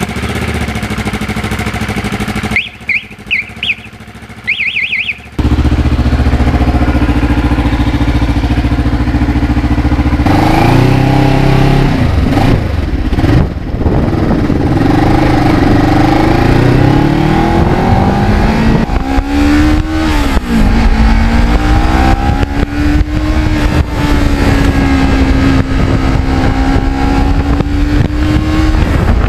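Kawasaki Ninja 650R parallel-twin engine running, with a quieter stretch of a few seconds near the start where a bird chirps in two short bursts. The engine then runs loud as the bike rides off, its pitch rising and falling with the throttle and gear changes, over heavy wind noise.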